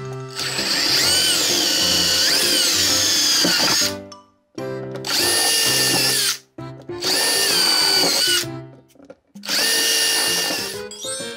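Cordless drill running a step drill bit through thin plastic crate wall to widen small holes, in four bursts, the first about four seconds long and the others shorter. The motor whine shifts in pitch within each run. Background music plays underneath.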